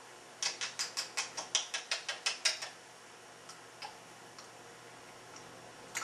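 An African grey parrot making a quick run of about a dozen sharp clicks, roughly six a second, followed by a few single ticks.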